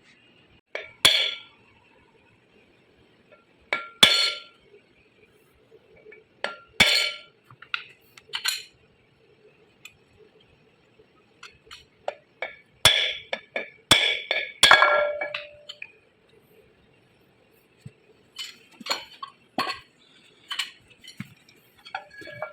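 Sharp metallic clinks and taps of metal tools against motor parts, each with a short ring: single strikes every few seconds, then a quick flurry in the middle, then lighter taps near the end.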